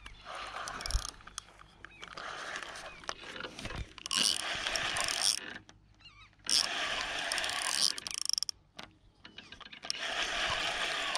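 Fishing reel being cranked in several spells of a few seconds each, with short pauses between them, winding in the line of a bottom rod to check whether a fish is still hooked after a bite.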